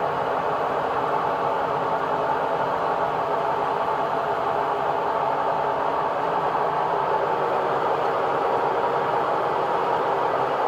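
LG WM2101HW front-load washing machine running loudly in its spin cycle: a steady, even whirring noise that does not change, louder than this machine used to run.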